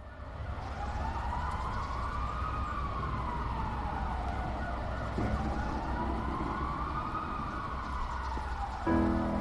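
Wailing siren sound opening a song track: a tone slowly rising and falling about every five seconds over a low rumble. About nine seconds in, instruments come in.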